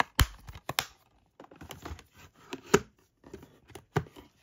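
Plastic Blu-ray keep cases being handled: a string of sharp clicks and knocks, the loudest nearly three seconds in, with light rubbing and rustling as a case is slid into its card box.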